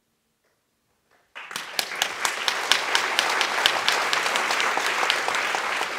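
Near silence, then just over a second in an audience suddenly breaks into applause, many hands clapping steadily.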